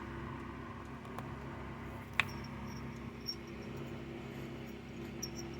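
Handling noise from a chainsaw being looked over, with one sharp click about two seconds in and a couple of lighter clicks later. A steady low hum runs underneath, with faint high chirps.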